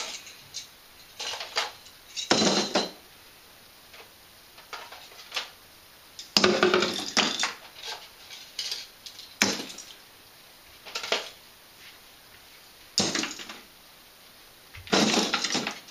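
Christmas tree baubles clinking and clattering against one another as they are handled and dropped among other baubles, in about eight separate short bursts with pauses between.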